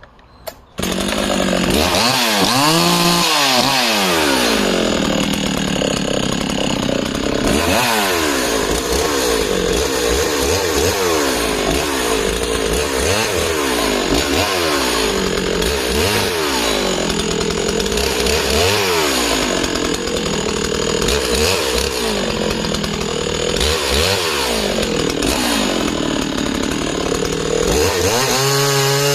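Husqvarna 61 two-stroke chainsaw with a full-chisel chain cutting conifer logs: the engine comes in loud just under a second in, its pitch sagging under load as the chain bites and climbing back again and again, and it revs up high and steady near the end.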